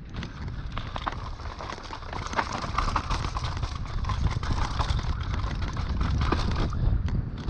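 Mountain bike riding fast down a dirt forest trail: tyre noise over dirt and roots, with many quick rattling knocks from the bike over the bumps.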